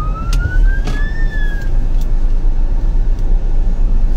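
A car siren gives one long rising wail that peaks about a second in and cuts off soon after, heard from inside a car over the steady low rumble of the cabin.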